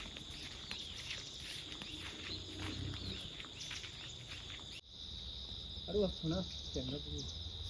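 Insects, crickets among them, trilling steadily at one high pitch, with scattered light ticks in the first few seconds. Brief voice sounds come in past the middle.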